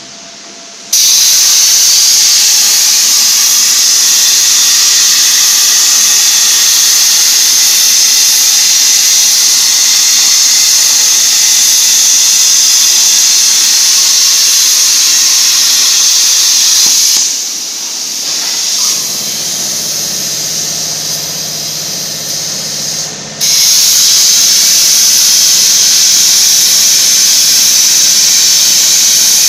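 Plasma cutting torch on a portable CNC cutting machine cutting steel plate: a loud, steady hiss that starts suddenly about a second in. Past the middle it drops away for several seconds, leaving a lower hum, then cuts back in sharply.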